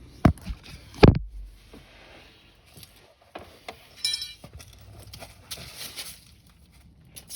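Hand-tool and parts handling during repair work: two sharp knocks in the first second, a ringing metallic clink about four seconds in, then rustling and light clicks.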